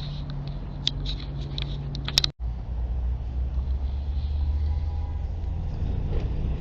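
Steady low rumble of road traffic, with a few light clicks in the first two seconds. The sound drops out abruptly for an instant a little over two seconds in.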